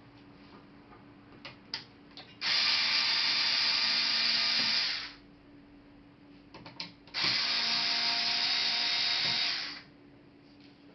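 A small power tool running twice, about two and a half seconds each time, with a few light clicks just before each run.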